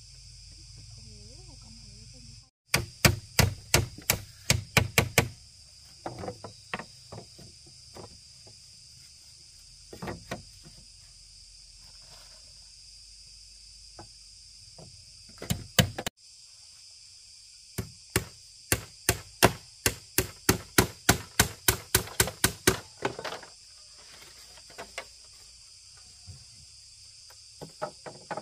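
Repeated sharp chopping strikes of a blade cutting into bamboo, in quick runs of about four a second with scattered single blows between. A steady high insect drone runs behind them.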